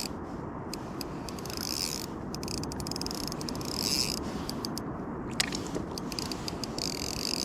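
Shimano Stradic 3000 spinning reel clicking in short rapid runs every couple of seconds while a hooked squid is fought, over steady water and wind noise.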